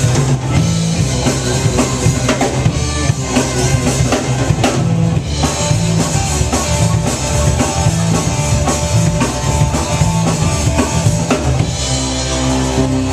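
Live southern blues-rock band playing: drum kit beating steadily under electric guitar, keyboards and bass guitar. About halfway through, held notes come in over the beat, and near the end the drumming eases while sustained chords ring.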